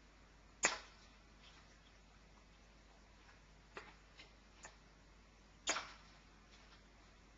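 Playing cards being handled in sleight-of-hand moves: a few sharp card clicks and snaps, the two loudest just under a second in and about six seconds in, with fainter taps between.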